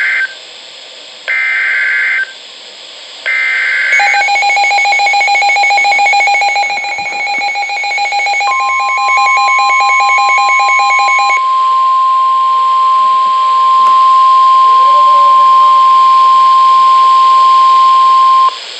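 NOAA Weather Radio EAS alert: the SAME header's one-second digital data bursts, a harsh buzzy warble repeated a second apart, ending about four seconds in. The weather radio's own alarm then beeps in a fast pulse for about seven seconds. Overlapping it, the 1050 Hz Warning Alarm Tone comes in as one steady high tone for about ten seconds, signalling a warning-level alert (a Flash Flood Warning), and cuts off just before the end.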